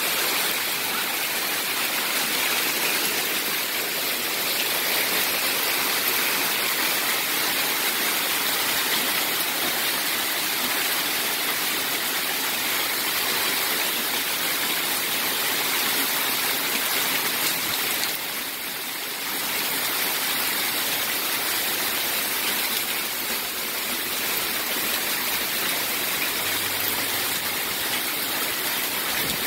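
Hailstorm: hailstones and rain pelting the ground and parked cars in a dense, steady hiss, which eases slightly for about a second some two-thirds of the way through.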